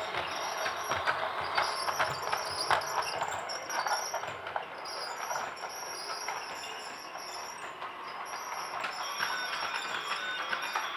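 Toy train running, a steady rattling clatter with many sharp clicks, busiest in the first few seconds.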